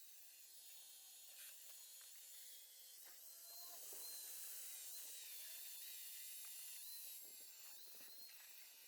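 Faint, high-pitched whine and hiss of a power grinder grinding down the sides of a stuck axle bearing, barely above near silence.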